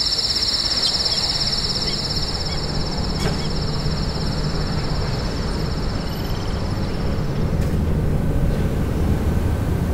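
Soundscape of a video installation: a shrill, steady high trill, like insects, over a low rumble. The trill cuts off suddenly about three-quarters of the way through, and the low rumble swells.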